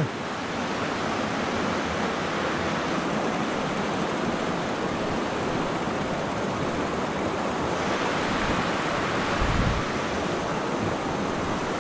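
Steady rushing wind noise over the microphone, with a brief low thump about nine and a half seconds in.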